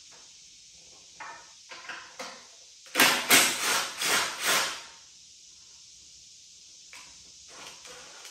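Hand ratchet with a deep-well socket clicking through a quick run of about five strokes about three seconds in, with a few lighter clicks and taps before it and near the end, as it loosens a motorcycle fuel tank mounting nut.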